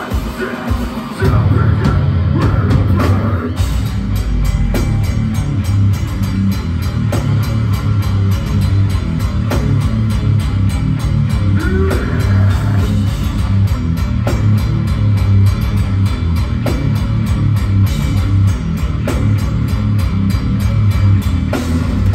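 Metalcore band playing live at full volume: distorted electric guitars, bass and drum kit. Choppy stop-start hits in about the first second give way to the full band playing steadily.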